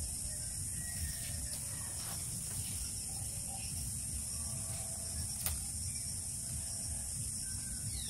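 Thin bamboo strips creaking and clicking as they are bent and twisted through the weave of a hand-woven bamboo basket, with a few sharp clicks, the sharpest about five and a half seconds in. A steady high buzz runs behind.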